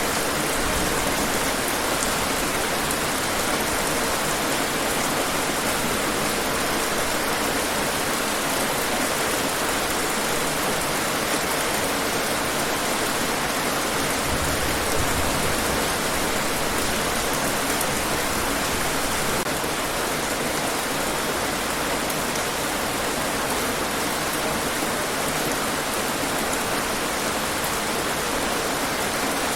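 Steady, heavy rain falling and pattering on hard surfaces, an even hiss with no breaks.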